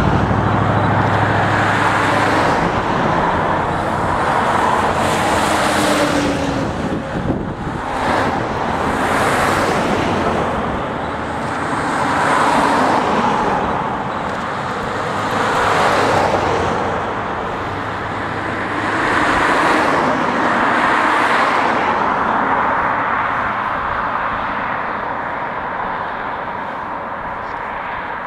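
A line of older cars and a van passing one after another, each one's engine and tyre noise swelling and fading as it goes by. The traffic gets quieter near the end as the last vehicles pass.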